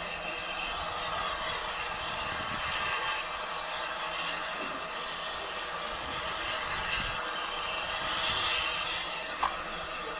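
Steady hiss of steam from the Peckett 0-4-0 steam locomotive standing at the head of the train, rising to a louder rush of steam about eight seconds in, with a single sharp click near the end.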